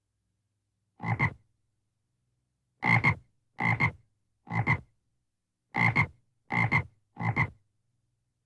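A frog croaking seven times, each croak a short call in two quick pulses. One call comes about a second in, then two groups of three.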